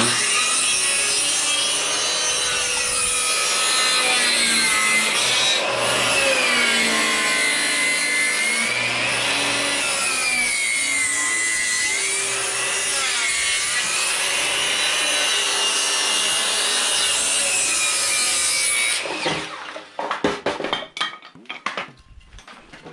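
Electric power saw cutting through wood, its motor pitch sagging and recovering under load, running for about nineteen seconds and then stopping abruptly. A few knocks and clatters follow near the end.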